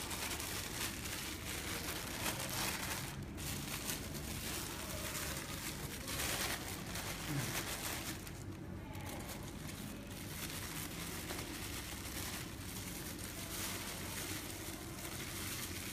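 Plastic packaging crinkling and rustling as parts are handled and unwrapped by hand.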